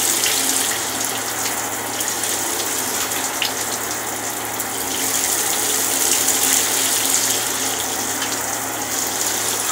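Shower spray running steadily into a bathtub, the water splashing on the tub floor and on a husky's wet fur.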